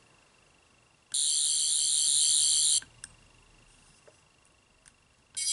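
10th Doctor sonic screwdriver toy playing one of its electronic sound effects, a high warbling whirr that starts about a second in and stops under two seconds later. A few faint clicks follow. The effect's pitch depends on where the toy's extension slider is set.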